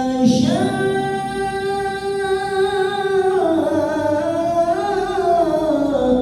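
A qori's voice in melodic Quran recitation, holding one long drawn-out note. About halfway it steps down in pitch, wavers up and down, and trails off near the end.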